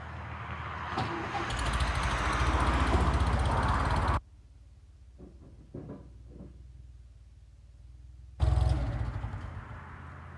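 Heavy diesel crawler engine running and getting louder, then dropping away abruptly about four seconds in. A quieter stretch follows with a few knocks. The engine comes back loud near the end and eases off.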